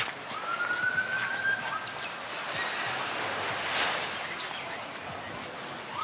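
An emergency-vehicle siren wailing, its pitch rising slowly over the first two seconds, with a new sweep starting right at the end. Underneath runs a steady outdoor background wash.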